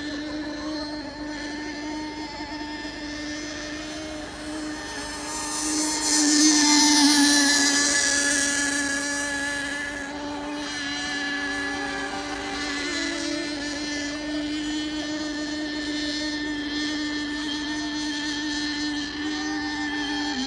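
Radio-controlled 4S electric sport hydroplane running laps: a steady high motor whine with hissing spray. It is loudest about six to nine seconds in as the boat passes close, then eases off as it runs on around the course.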